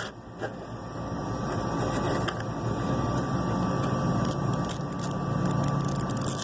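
A machine running steadily with a thin, steady whine; a deeper hum builds up about three seconds in.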